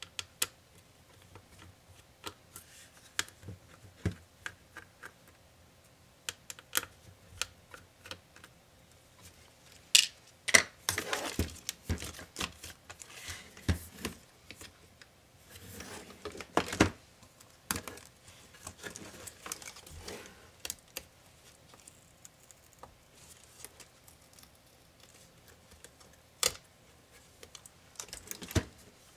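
Irregular sharp clicks and taps of plastic and metal parts as an MSI GS66 Stealth laptop is taken apart: a screwdriver works at a hinge, then the display assembly is handled and eased off the base. There are longer spells of scraping and rattling about a third of the way in and about halfway through.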